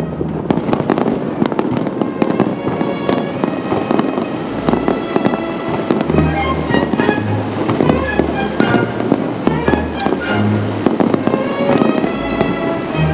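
Fireworks display: aerial shells and low comets bursting in rapid, dense cracks and bangs, over music.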